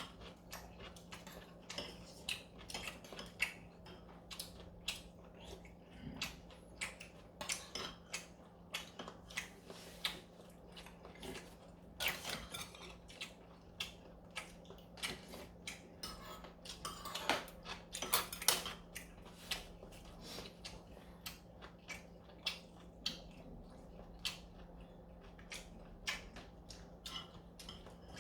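Cutlery clinking and scraping against soup bowls during a meal: many small irregular clicks, thicker in a couple of short clusters midway, over a steady low hum.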